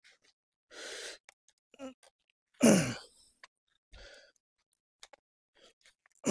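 A man's forceful exhales of effort, three of them, during reps of a heavy 45 kg single-arm dumbbell row. The loudest, a couple of seconds in, is a short grunt that drops in pitch.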